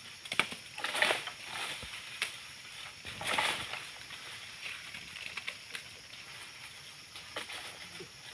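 Rustling and scraping of dry oil palm fronds, with a few sharp clicks, as a long-pole harvesting sickle works in the palm crown; the louder bursts come about a second in and at about three and a half seconds.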